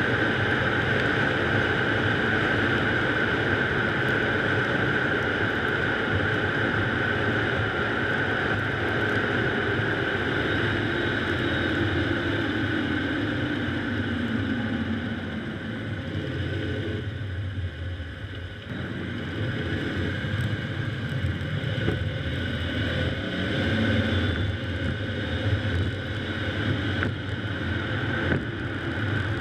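Steady road and engine noise of a car driving, picked up by a car-mounted GoPro. The noise dips partway through as the car slows, with a pitch that falls before the dip and rises again afterwards.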